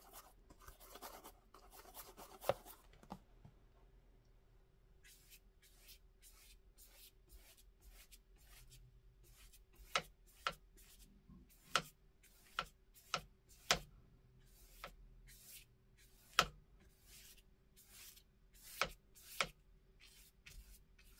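Paintbrush working acrylic paint: a soft rubbing as paint is mixed on the palette at first, then, from about five seconds in, many short brush strokes swishing across moistened paper at uneven intervals.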